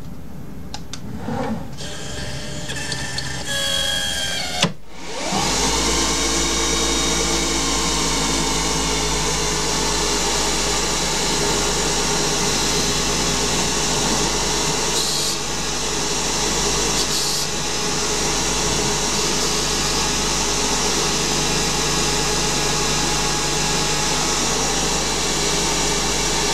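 Small CNC lathe turning a Delrin bar. For the first few seconds there are quieter motor tones and a click. About five seconds in, the spindle runs steadily at speed, spinning the chuck at 3000 rpm while the turning tool cuts.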